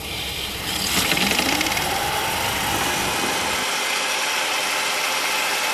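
3D-printed Pelton turbine spinning up as the hose water jet is turned on against its buckets: a rush of spraying water about a second in and a whine rising in pitch, then a steady whirring spray as the turbine runs its 12-volt motor as a generator.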